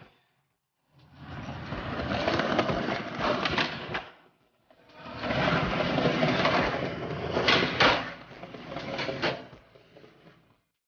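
Skateboard wheels rolling and rattling over tiled concrete flatground, with a few sharp clacks of the board popping and landing. The sound comes in two stretches, with a short break about four seconds in.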